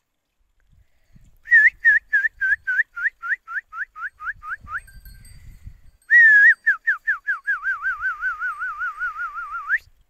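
Mobile phone ringing with a whistled-tune ringtone, an incoming call. First a run of short chirps that fall in pitch and slow down, then after a short break a fast, even warble that ends on a rising sweep.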